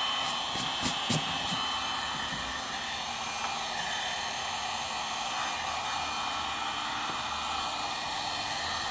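Handheld hot-air blower running steadily, drying a freshly cleaned leather cushion. A few light clicks sound in the first second and a half.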